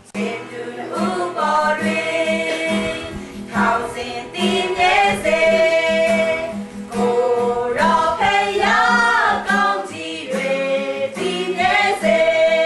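Background music: a song with sung vocals over a steady, pulsing accompaniment.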